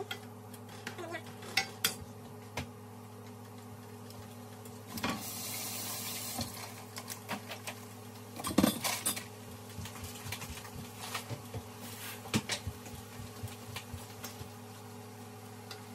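Wooden spoon knocking and scraping against a stainless steel frying pan as ground beef is stirred, with scattered clicks throughout over light sizzling. A steady low hum runs underneath.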